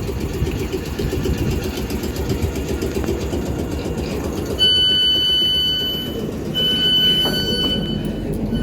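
Inside a Class 455 electric train: a steady low rumble of the train, then about halfway through a loud high electronic warning tone sounds twice, each for about a second and a half with a short gap, and starts a third time at the end, typical of the door warning.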